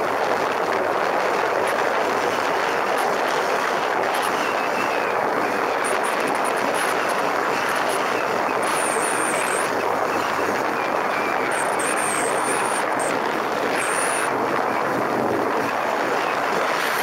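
Steady rushing noise of a motorcycle riding at speed, mostly wind over the camera with the bike running underneath, and a few short high whistles in the second half.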